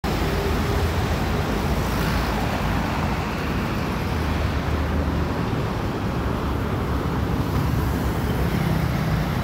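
Steady roadside traffic noise from a busy multi-lane avenue, with vehicles going by continuously.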